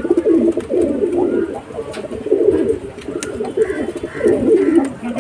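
Several Andhra high-flyer pigeons cooing continuously, many low coos overlapping one another.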